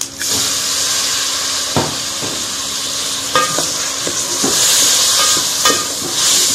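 Raw chicken pieces dropped into hot oil and sliced onions, setting off a loud, steady sizzle that starts suddenly. A wooden spoon stirs the meat and onions against the metal pot, with a few sharp knocks.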